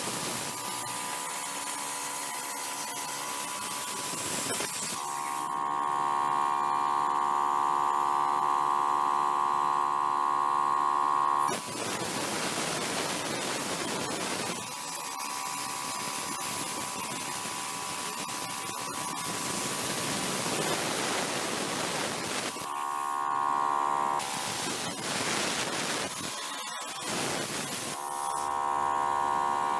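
A DIY CNC plasma-cutting machine at work. Stretches of a steady whine from its stepper motors alternate with stretches of loud, even hissing from the plasma torch.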